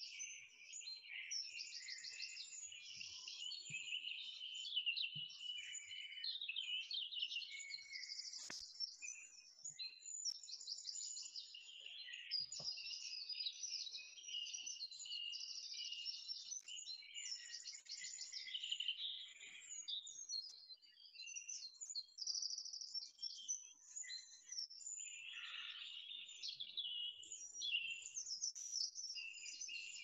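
Woodland songbirds singing together: many overlapping songs, trills and chirps, continuous and dense.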